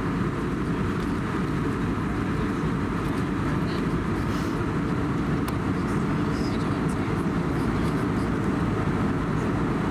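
Steady in-flight cabin noise inside an Airbus A320neo: an even, unchanging drone of airflow and its CFM LEAP-1A engines, mostly low-pitched.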